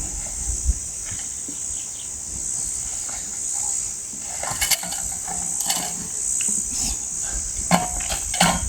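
Steady high-pitched chirring of insects, swelling and fading, with a few sharp clicks and knocks about halfway through and near the end.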